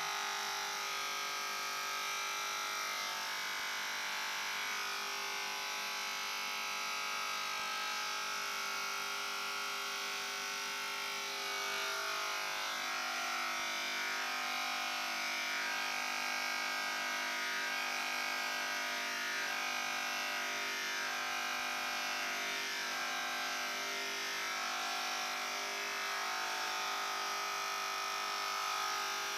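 Corded electric hair clipper buzzing steadily as it runs through hair. In the middle part of the stretch its tone wavers every second or two.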